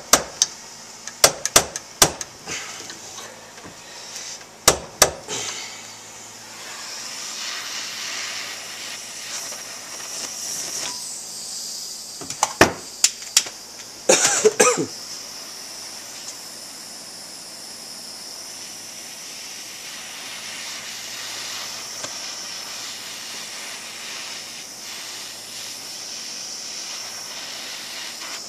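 A propane torch hisses steadily from about six seconds in, heating the suspension rocker to loosen its press-fit bearings. Sharp clinks and knocks come near the start, about five seconds in and again around twelve to fifteen seconds in.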